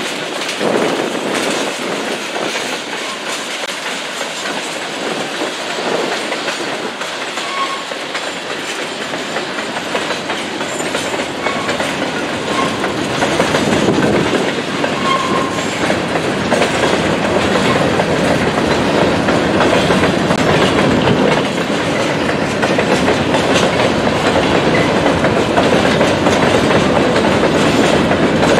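Empty covered grain hopper cars of a freight train rolling past, their wheels clattering steadily over the track, with a few brief faint wheel squeals. It grows louder from about halfway.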